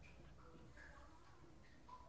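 Near silence: a faint background with a few soft, short sounds.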